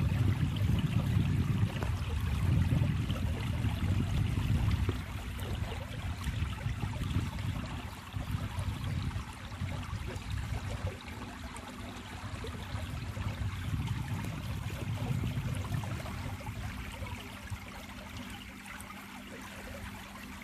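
Water trickling and lapping against the hull of a slowly moving boat, with a low rumble that eases after about five seconds. A faint steady hum runs under it from then on.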